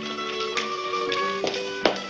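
Orchestral underscore music with several held notes, and a sharp tap about two-thirds of the way through.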